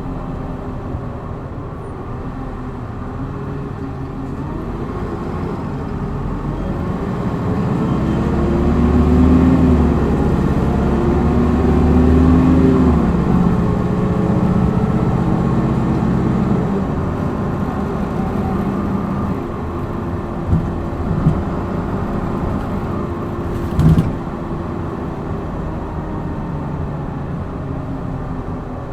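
Hino Blue Ribbon city bus's diesel engine heard from inside the bus, accelerating hard in power mode. The engine note climbs and swells, loudest around nine to thirteen seconds in, then eases to a steady run. A sharp knock comes near the end.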